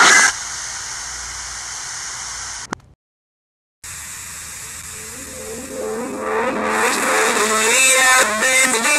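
Distorted, reversed audio recording: static hiss, a single click, about a second of dead silence, then hiss again. From about five seconds in, the clip replays reversed with its pitch raised, and a garbled, warbling voice-like sound builds over the hiss.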